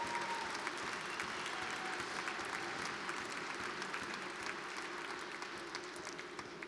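A large audience applauding, a dense patter of many hands clapping that slowly dies down toward the end.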